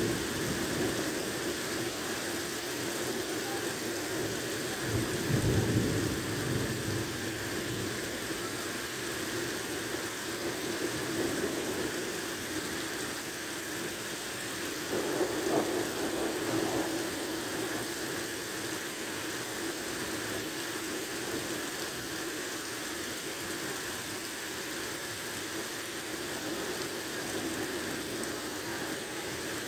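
Heavy rain pouring steadily onto a flooded street during a thunderstorm, with a low rumble of thunder about five seconds in and a second, shorter swell around the middle.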